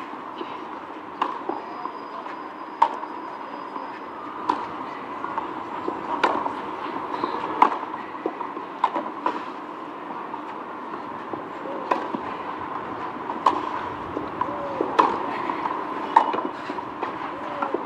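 Tennis rally: rackets strike the ball back and forth, a sharp pock about every one and a half seconds, over steady background noise.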